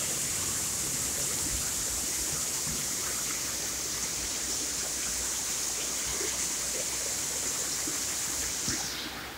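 Very heavy tropical rain pouring steadily, a dense hiss of drops on roof tiles and broad leaves. The hiss falls away near the end.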